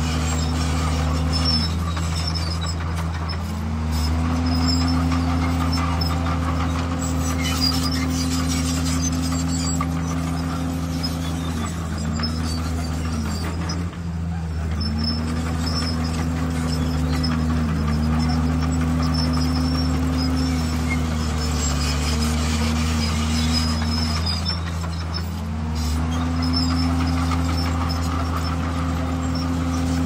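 Komatsu crawler bulldozer's diesel engine running steadily under load while working. Its note sags and recovers several times as the blade pushes, with scattered high-pitched squeaks over it.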